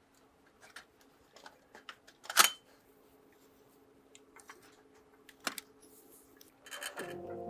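Small clicks and taps of hard, small parts being handled, with one sharp loud click about two and a half seconds in, over a faint steady hum. Music comes in near the end.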